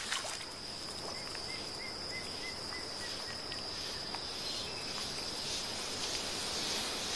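Forest ambience led by a steady, high-pitched insect trill, with a faint run of short, evenly spaced chirps in the first few seconds.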